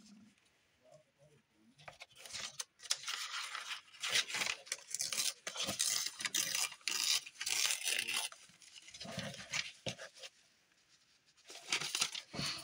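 Old paper being handled, giving several stretches of crackly rustling noise that start about two seconds in, pause briefly, and return twice near the end.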